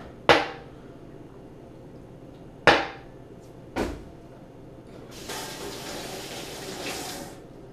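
Three sharp knocks of glass on a granite countertop in the first four seconds, then a kitchen sink faucet running for about two seconds.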